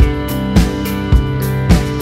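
Instrumental background music: held chords over a steady beat of a little under two strong thumps a second.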